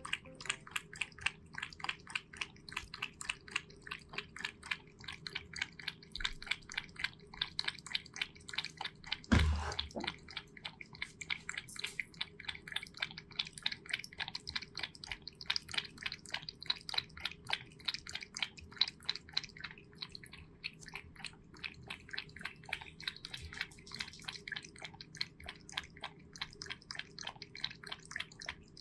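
Cat lapping water, a fast even run of small wet laps at about four a second, with one louder thump about a third of the way through.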